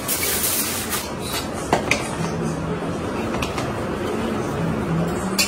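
Aluminium foil crinkling as it is crumpled and pulled off a pot of dum-cooked biryani, then several sharp clinks and knocks of serving utensils on steel pots, over a steady background rush.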